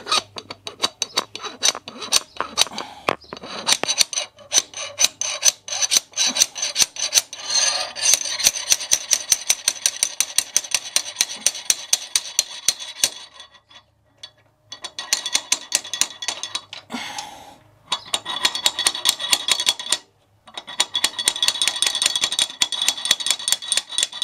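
Slide hammer being worked to drive a new exhaust rocker shaft into a Yamaha Virago XV1100 cylinder head: rapid metallic clacks of the sliding weight hitting its stop, about four a second, with a high ringing and a couple of short pauses.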